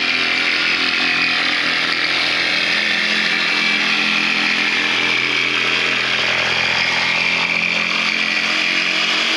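DeWalt cordless jigsaw cutting through a board, running at a steady speed without a break.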